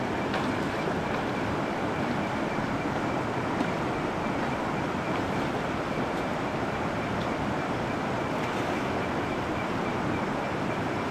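Steady rushing of flowing stream water, with a faint steady high tone above it and a few light clicks.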